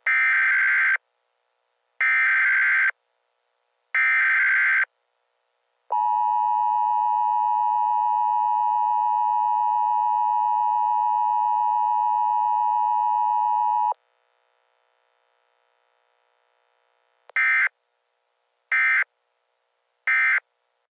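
Emergency Alert System signals: three one-second bursts of the digital data header, then the steady two-tone attention signal, held for about eight seconds and cut off sharply. After a pause come three short end-of-message data bursts.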